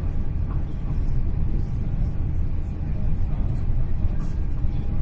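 Steady low rumble of a Class 800 Intercity Express Train's interior at speed: wheels on rail and running gear, with no single knocks or changes.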